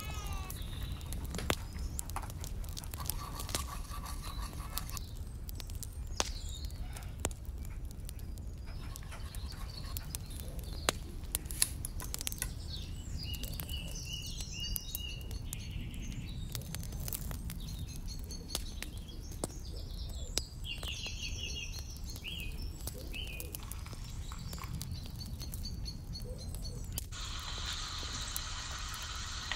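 Birds chirping in short bursts over a low steady rumble and scattered crackles from a tiny wood fire. A couple of seconds before the end, a sudden steady sizzle starts as chopped onion drops into hot oil in a miniature pan.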